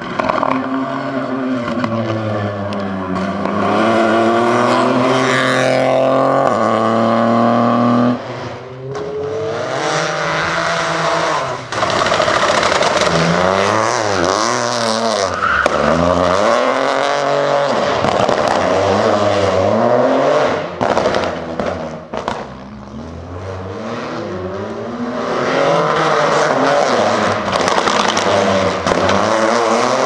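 Rally car engines running at full throttle, the pitch climbing through each gear and dropping sharply at shifts and lifts, with quick up-and-down throttle changes in the middle. Tyres scrabble on loose gravel and dust as the cars slide.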